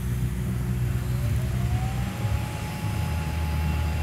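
Steady low hum and rumble while a TIG arc tacks a socket olet onto a steel pipe, with a faint whine that rises in pitch about a second in and then holds steady.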